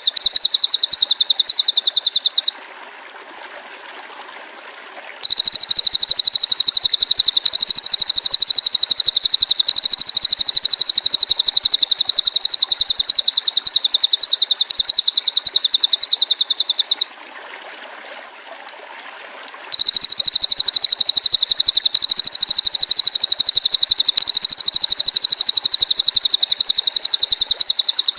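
High-pitched, very rapid pulsed trill from a masteran song recording used to train cage birds, running continuously with two short breaks, one about two and a half seconds in and another around seventeen seconds in.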